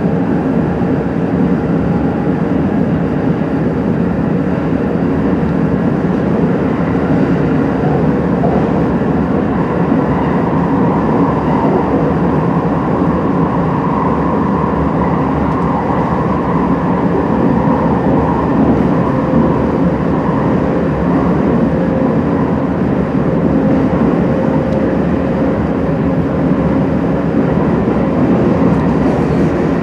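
Running noise of an E231 series electric train heard from inside the car while under way: a steady rumble of wheels on rail with a faint whine over it.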